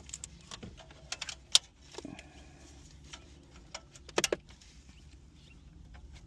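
Sharp plastic clicks and rattles of wiring harness connectors being handled and plugged into the back of a car radio head unit, the loudest click about a second and a half in and a quick pair of clicks around four seconds in.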